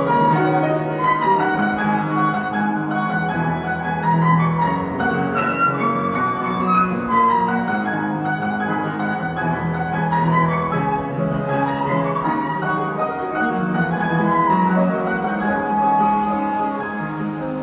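Instrumental music from several instruments playing together, with sustained low notes under rising runs of higher notes; it grows a little quieter near the end.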